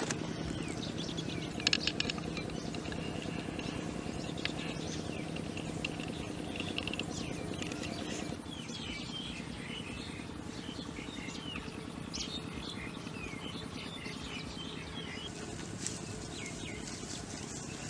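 Birds chirping on and off over a steady low hum, which drops away about eight seconds in. A brief cluster of clicks about two seconds in.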